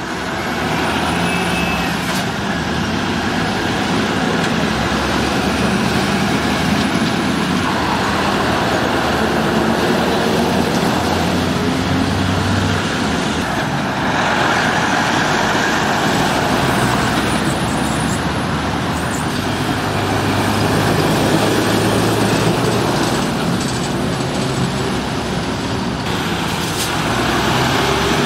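Heavy lorries' diesel engines and tyres as several trucks drive round a roundabout one after another, over steady road traffic noise.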